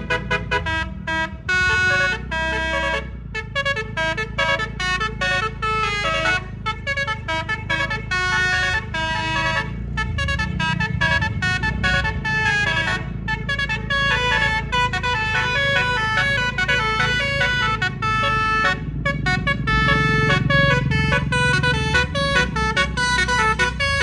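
Bus musical air horn (telolet) playing a fast tune, one short note after another at changing pitches, over the low rumble of the bus's running diesel engine.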